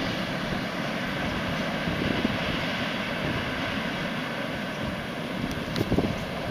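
ST44 (Soviet M62) diesel locomotive's two-stroke V12 engine droning steadily as it hauls a freight train away, with the rumble of the wagons on the rails and a few low knocks about two seconds in and near the end.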